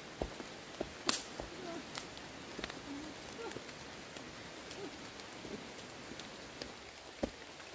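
Footsteps of people in rubber boots walking through leaf litter and undergrowth on a forest path, with scattered sharp snaps of twigs, the loudest about a second in. Faint short chirping calls come and go in the background.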